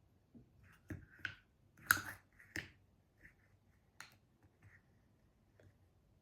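Light clicks and taps of small objects being handled by hand, about five of them spread over a few seconds, the loudest about two seconds in.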